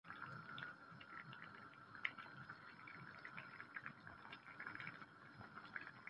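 Vinegar brine with red onion pieces boiling in a glass pot: faint bubbling with many small irregular pops and crackles.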